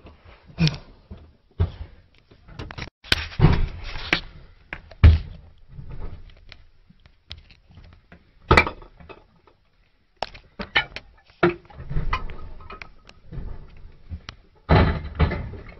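Irregular heavy thuds and knocks of ammunition crates and artillery shells being thrown down from a truck onto a pile of shells, a dozen or so impacts of varying loudness.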